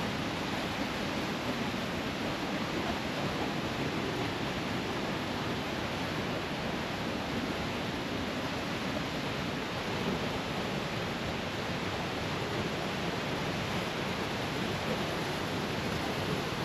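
Gýgjarfoss waterfall: a steady, unbroken rush of falling water.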